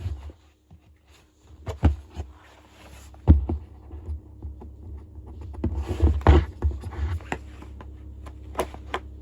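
Knocks, taps and scraping as a small cardboard box is handled and worked open with a knife, with a denser stretch of scraping about six seconds in. A steady low hum sits underneath from about three seconds in.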